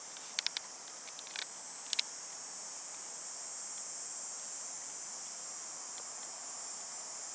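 Steady high-pitched chorus of insects, with a few short, sharp clicks in the first two seconds.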